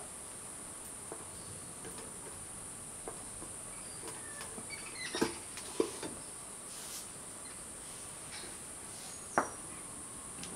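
A steady high-pitched chorus of insects, with a few light clinks and scrapes of a metal utensil against an aluminium cake tin, a couple around the middle and one near the end.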